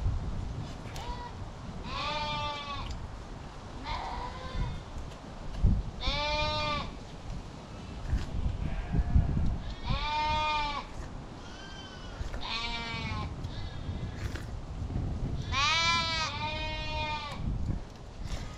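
Sheep bleating repeatedly: about six wavering calls, a few seconds apart, one of them a long double call near the end.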